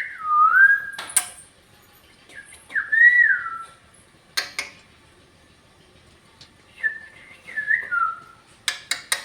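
Parrot whistling three short phrases, each a clear note that swoops up and then down, with a few sharp clicks between them.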